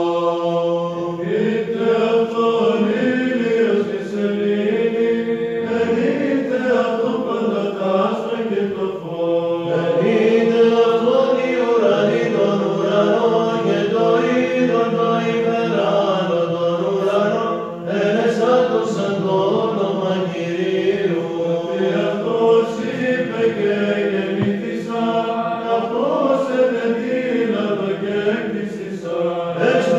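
Greek Orthodox Byzantine chant: a choir of male voices singing psalmody in Greek, the melody moving over a steadily held drone note.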